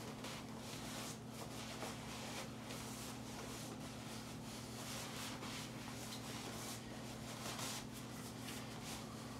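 A synthetic sleeping bag's fabric rustles and swishes as it is stuffed by hand into a compression sack, in irregular pushes, over a steady low hum.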